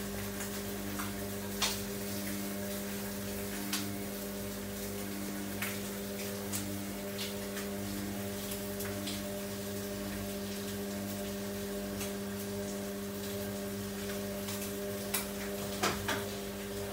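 Samsung front-loading washing machine tumbling a load of clothes: a steady motor hum with a faint regular pulse, and occasional sharp clicks and knocks, several close together near the end.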